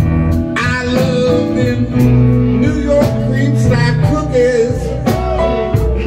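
Live blues band playing: a Stratocaster-style electric guitar with bent notes over drums and cymbals, with a man's voice singing.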